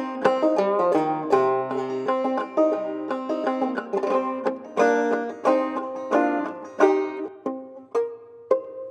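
Banjo played clawhammer style: a run of plucked notes that slows and thins out over the last few seconds, with a last note left ringing near the end.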